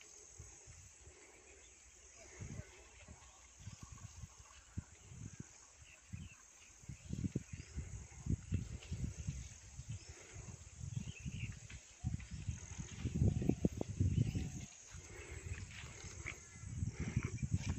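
Outdoor field ambience: a steady high insect drone with a few faint chirps, and irregular low thuds and rumbles on the microphone that grow louder from about seven seconds in.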